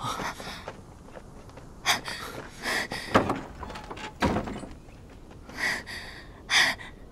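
A series of short rustles and knocks as people hurry up to and handle a wooden horse-drawn carriage, with a deeper wooden thunk a little past the middle.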